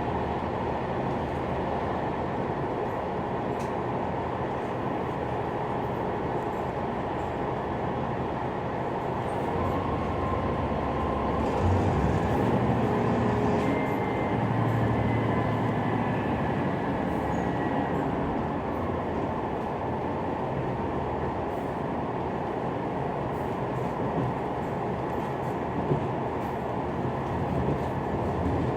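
Cabin of a KiHa 187 series diesel express railcar on the move: a steady rumble of the diesel engine and the wheels on the rails. A deeper low rumble swells for several seconds about halfway through.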